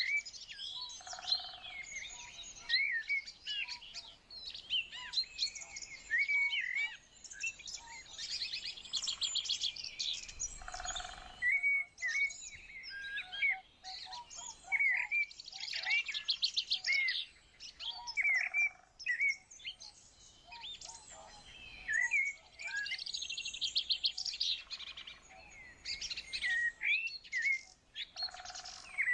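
Several songbirds chirping and singing together, with short hooked notes and repeated rapid trills overlapping throughout.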